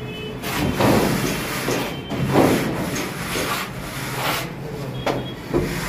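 Aluminium straightedge dragged across wet cement plaster on a wall, giving several rasping scraping strokes as the fresh coat is levelled.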